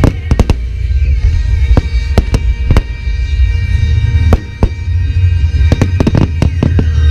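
Nagaoka aerial firework shells bursting in a series of sharp bangs at irregular intervals, with a deep rumble underneath, over music playing.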